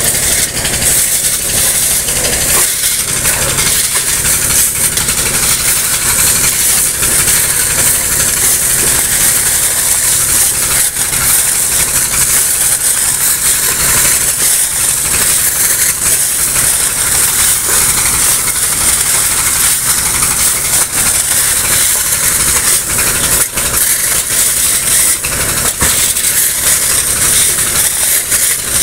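An engine running steadily under a loud hiss, with frequent short scrapes and crunches of steel shovels digging into wet river gravel.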